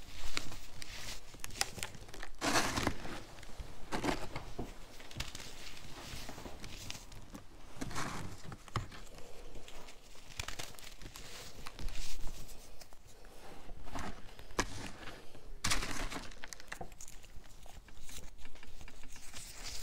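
Packed balls of baking soda crushed and crumbled in the palms, a crunchy crackling that comes in irregular bursts, turning into fine rapid crackles near the end.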